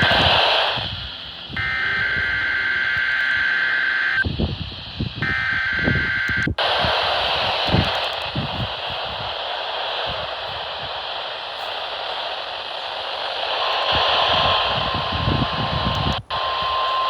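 NOAA Weather Radio emergency alert signal. First comes the SAME digital header, a harsh two-tone warble in three bursts with short gaps, which cuts off abruptly. A stretch of radio static hiss follows, then the steady single-pitch 1050 Hz warning alarm tone begins about 13 seconds in.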